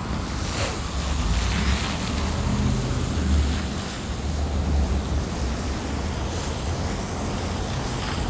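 Wind buffeting the microphone over street traffic, with a low engine rumble from passing vehicles that swells through the middle.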